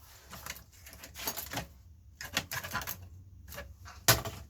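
Irregular clicking and clattering of hard plastic and metal parts as an old cassette deck is pulled apart by hand, with one sharp knock about four seconds in.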